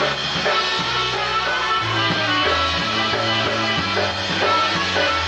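Live polka band playing an instrumental passage, with a bass line stepping from note to note under sustained chords.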